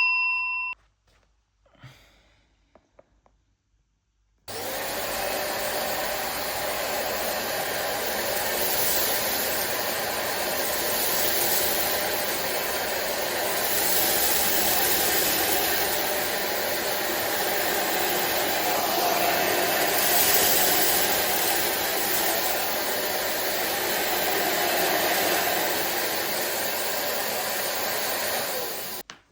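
SilverCrest SHZK 600 2-in-1 vacuum cleaner switched on a few seconds in, running steadily with its whoosh swelling and easing a little, then switched off abruptly near the end. A bell-like chime fades out at the very start.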